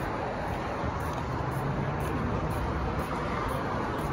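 Steady road traffic noise from passing cars, with a low engine hum that sets in about a second in.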